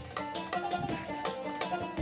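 Background music led by a plucked string instrument, picking out a quick run of short notes, about three or four a second.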